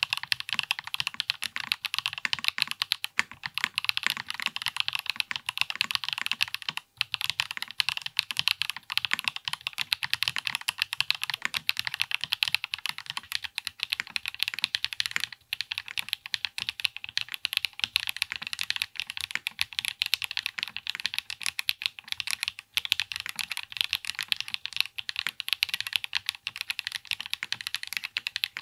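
Fast, continuous typing on a Zoom75 TIGA mechanical keyboard with stock WS POM+ switches and Cherry-profile PBT keycaps, built with no foam: on the aluminium plate at first, then on the POM plate partway through.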